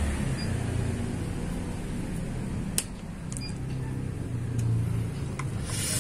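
Screwdriver tightening the bolts of a scope mount clamped on an air rifle barrel: a few small, sharp metal clicks, the loudest about three seconds in, over a low steady background hum.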